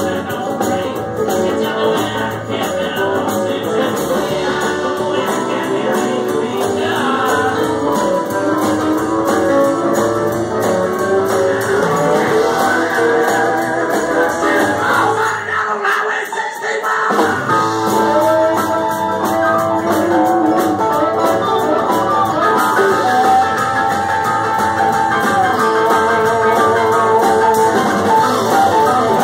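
Live band playing a blues-rock number: electric guitar, keyboard, drums and horns including trumpet. About halfway through the low end drops out for a second or so before the full band comes back in.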